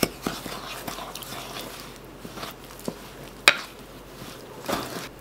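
Wooden spoon stirring thick peanut butter cookie dough (peanut butter, sugars, egg and fat) in a glass bowl: soft squishing and scraping, with a few knocks of the spoon against the bowl. The sharpest knock comes about three and a half seconds in.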